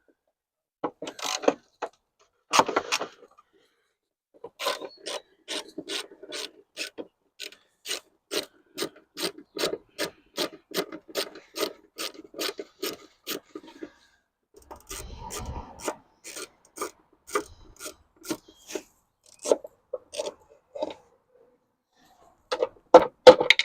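Ratchet driving a T27 Torx bit to undo the lower bolt of a van's rear light cluster, clicking at about three clicks a second in long runs with a short break midway. A louder clatter comes near the end.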